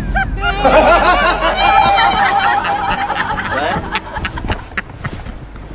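Laughter, fading off near the end.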